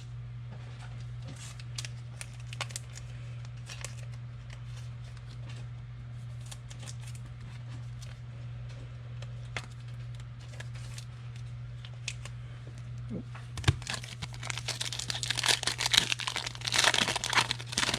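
Trading cards being handled with scattered light clicks over a steady low hum, then, from about three-quarters of the way in, a card pack's foil wrapper being torn open and crinkled loudly.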